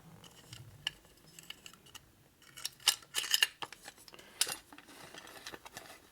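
Metal tools and motorcycle parts clinking and scraping during hand assembly work, with a quick run of sharp clinks about three seconds in and another clink about a second later.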